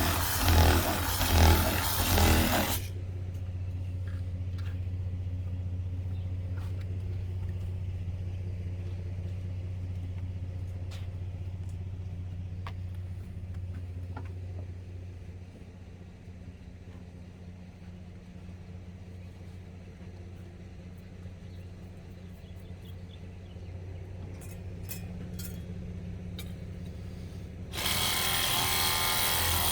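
A power tool runs loudly for the first few seconds and starts again near the end, cutting through windshield adhesive. Between those stretches there is a quieter steady low hum with a few faint clicks and taps.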